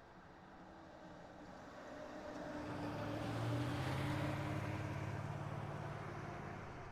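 A car passing by: its engine and tyre noise build up, peak about three and a half seconds in, then fade as it moves away.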